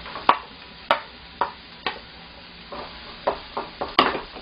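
Wooden spatula knocking and scraping against a frying pan while diced onion, leek and carrot are stir-fried: sharp, uneven knocks about two a second, the loudest near the end.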